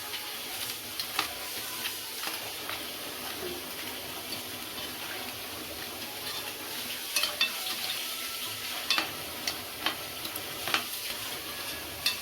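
Crab cooking in a spiced coconut masala in a pan: a steady sizzle while a spoon stirs it, with scattered clicks and scrapes of the spoon against the pan.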